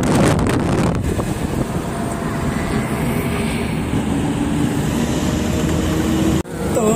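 Maruti Gypsy on the move, heard from inside: engine and road noise, with wind buffeting the microphone in the first second, then a steadier run in which the engine note rises slightly. The sound cuts out briefly about six and a half seconds in.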